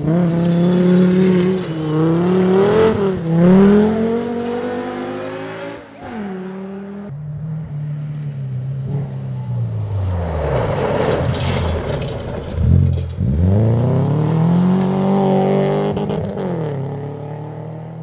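Rally car engine at full throttle, its pitch climbing and then dropping sharply with gear changes and lifts off the throttle, twice in sharp dips. It fades toward the end.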